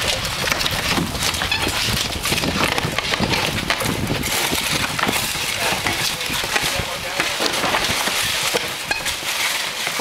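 Old asphalt shingles being torn off a roof with roofing shovels: irregular scraping and clattering knocks of the tools against the roof, over a steady noisy background.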